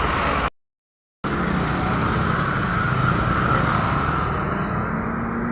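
Road vehicle engine running with steady traffic noise and a low hum, broken by a moment of dead silence about half a second in.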